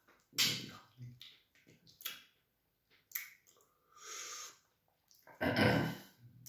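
Close-miked mouth sounds of a man eating fufu and light soup with his fingers: wet smacking and sucking of soup off the fingers, in separate short bursts. The loudest comes near the end, with some voice in it.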